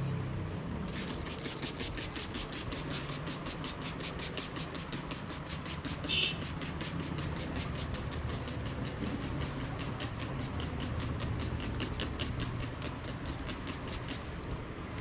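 Fast, even tapping, about five or six soft taps a second, over a low rumble, typical of hands tapping rhythmically in a barber's massage. A brief high chirp sounds about six seconds in.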